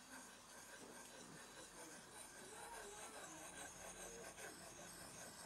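Near silence, with only a faint rubbing of a knife blade on a fine 6000-grit King Japanese water stone as it is worked in circular, rocking strokes to hone a convex edge.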